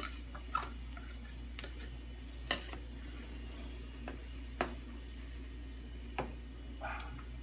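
A spoon stirring noodles and vegetables in a stainless steel pot of boiling water, with about five short knocks of the spoon against the pot over a steady low hum.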